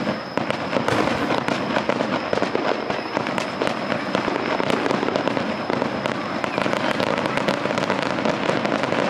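Aerial fireworks display: many shells bursting in quick succession, a dense, unbroken crackling clatter of overlapping reports.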